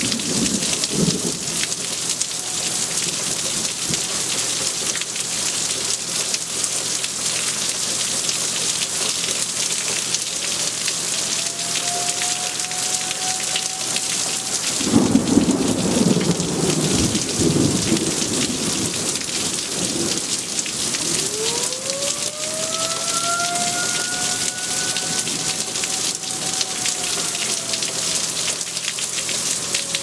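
Steady heavy rain falling on trees, with a low rumble of thunder about fifteen seconds in. A faint wailing tone rises and holds through the second half, falling away near the end.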